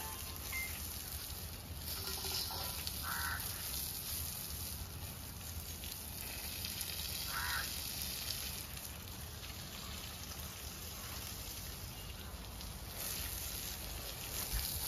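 Water spraying from a garden hose onto wet, muddy soil: a steady hiss and splatter.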